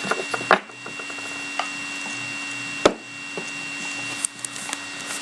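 Trading-card packs being handled on a tabletop: a few light taps early on and one sharp knock about three seconds in, over a steady faint electrical hum.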